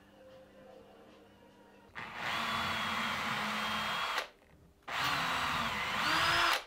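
Cordless drill boring into the wooden mirror frame in two runs, the first about two seconds in, the second after a short pause and climbing in pitch near the end.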